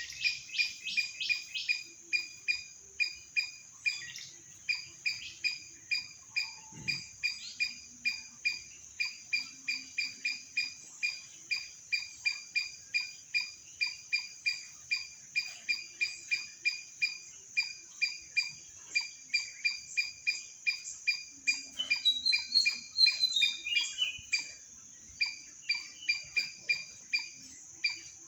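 Nature sounds: a steady high buzz under a short, sharp chirp that repeats about two to three times a second, with one rising-then-falling bird call about three-quarters of the way through.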